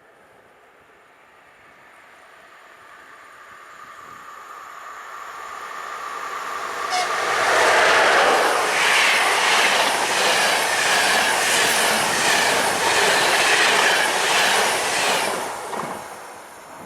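A train approaching and passing at speed. The noise builds for several seconds, then the cars go by loudly with a regular clickety-clack of wheels over rail joints, about two clicks a second, and it drops away sharply near the end.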